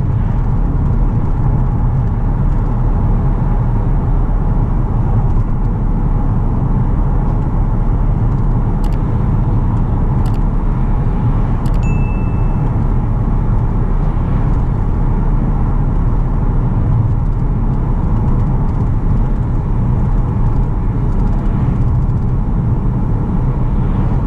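Steady low rumble of road, tyre and engine noise inside the cabin of a 2007 Mercedes-Benz E320 CDI, its 3.0-litre V6 diesel cruising at highway speed. A few faint clicks and a short ding sound about halfway through.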